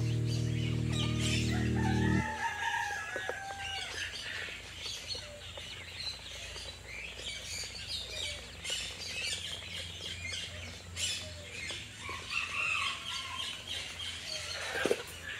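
Call duck ducklings peeping: many short, high cheeps, with a few lower calls mixed in. A low sustained chord of background music cuts off about two seconds in.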